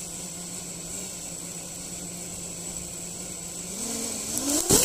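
A 5-inch 6S FPV racing quadcopter's four Xing 2206 1950kV brushless motors spinning their props at armed idle on the ground: a steady low hum with a thin high whine. Near the end the pitch rises as the throttle comes up for takeoff, and a loud rush of prop wash starts.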